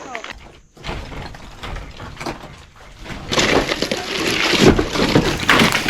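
A heavy wooden log being worked loose from a log wall: a knock, then a couple of seconds of grinding scrape and clatter ending in a heavy thud as it comes down.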